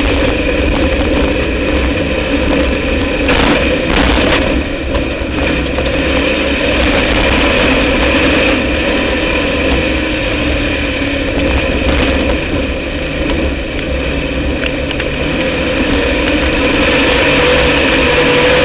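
Dirt-track race car engine running at a fairly steady speed, heard from inside the car, its pitch rising and falling only slightly, with two brief rushes of noise about three and a half and four seconds in.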